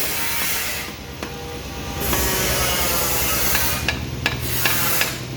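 Motorcycle-workshop noise: a steady low hum under bursts of hissing that start and stop, with a few sharp metallic clicks and taps in the second half.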